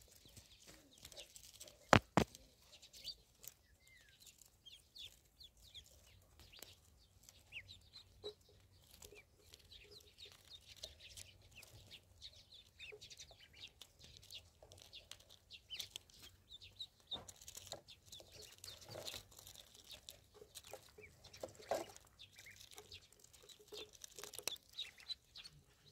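A group of ducklings peeping in many short high calls while they forage close by, with small clicks and taps from their bills. A single sharp knock about two seconds in is the loudest sound.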